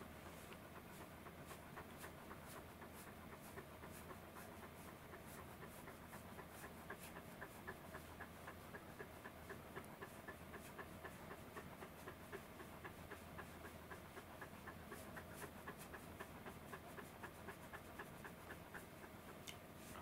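Faint, quick, even panting of a long-coated Welsh corgi, mouth open, through most of the stretch. The owner takes the shaggy dog to be feeling the heat.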